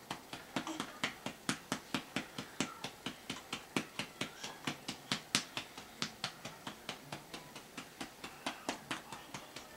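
A hand patting a newborn baby's back to bring up a burp: a steady run of quick pats, about four to five a second.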